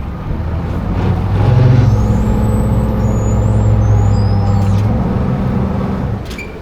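Boat's motor under throttle, driving the hull up onto its trailer on a steep ramp. It builds about a second in, runs steadily for a few seconds, then eases off near the end.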